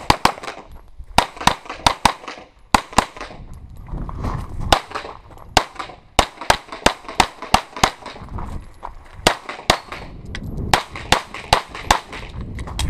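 Semi-automatic pistol fired in rapid pairs, about thirty sharp shots with brief pauses between strings: a USPSA stage being shot against the timer.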